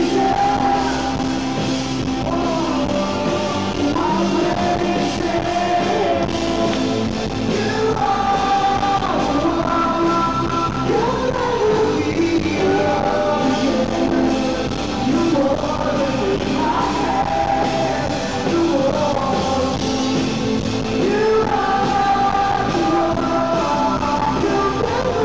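A rock band playing live, loud and without a break: electric guitar and drums, with a man and a woman singing.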